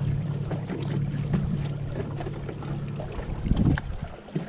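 Fishing boat's motor running steadily at low speed, a low hum with a brief louder swell about three and a half seconds in.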